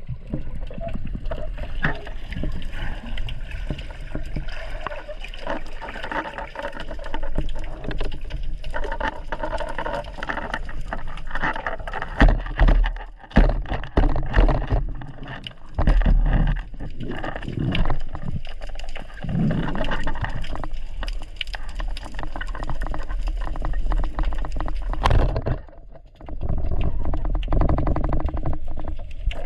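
Underwater shallow-reef ambience picked up by a GoPro underwater: a steady rush of moving water with dense crackling clicks and deep gurgling surges. The surges are loudest around the middle.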